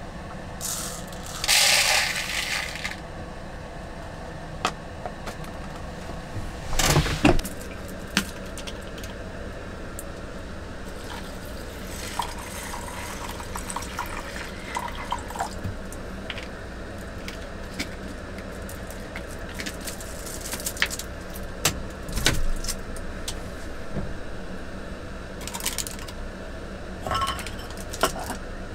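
Dry rice grains poured into a small ceramic pot with a brief hiss about two seconds in, then water poured from a plastic bottle into the pot, and the ceramic lid set on near the end. Scattered knocks and clinks of crockery on the wooden table come between, the loudest a knock about seven seconds in.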